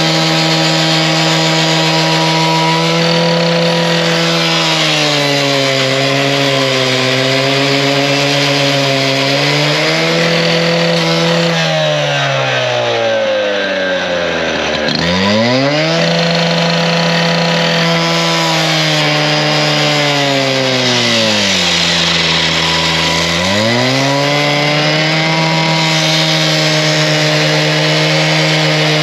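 Stihl TS 420 two-stroke cut-off saw with a 14-inch blade cutting through a water heater's steel tank, the engine at full throttle over a harsh grinding hiss from the blade. The engine pitch sags as the blade is pressed into the cut. It bogs down hard about 14 seconds in and again about 22 seconds in, recovering each time.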